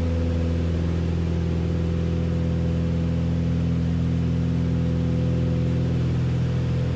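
Beechcraft Baron B55's two six-cylinder piston engines and propellers running steadily in cruise flight, heard inside the cockpit as an even, low hum of several steady tones.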